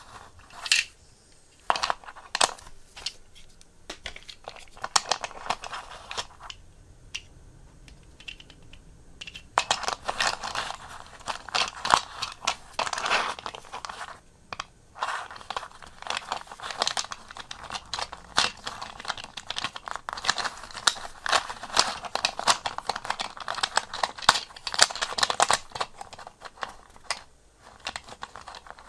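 Small toy Toyota Hiace minicars clicking and tapping against each other and the tabletop as they are handled and stacked by hand, with a rustle of handling. The clicks are scattered at first, then come in a dense run from about ten seconds in.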